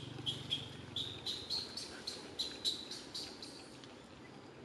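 A small bird chirping: a quick series of short, high-pitched chirps, about three a second, over faint forest background.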